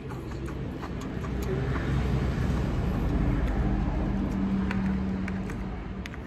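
A motor vehicle driving past, its low engine rumble swelling to a peak a few seconds in and then fading.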